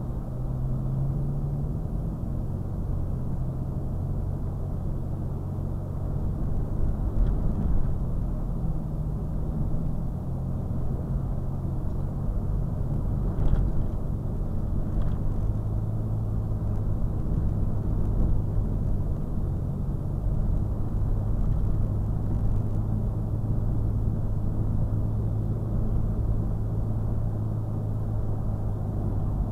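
Steady engine and road drone of a Toyota FJ Cruiser cruising at about 40 to 45 mph, from its 4.0-litre V6 and tyres. A low hum holds steady, with its pitch shifting slightly a few times, and a couple of faint ticks sound about halfway through.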